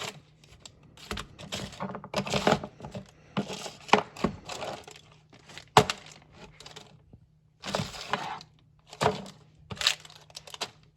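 Rummaging through a storage container for lawn stakes: irregular clattering, knocks and rustling as objects are shifted about.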